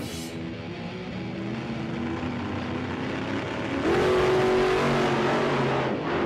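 Background song with a melody line. About four seconds in, a louder motor-like sound rises in pitch and holds for about two seconds, then drops away.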